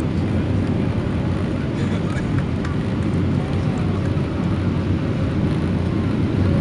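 Steady low rumble of a Boeing 777-300ER jet airliner during landing.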